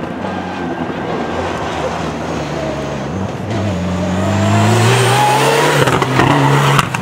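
Mitsubishi Lancer Evolution rally car's engine coming up the gravel stage under hard acceleration: a gear change drops the revs briefly a little past three seconds, then the note climbs and grows louder as the car nears, peaking about five to six seconds in.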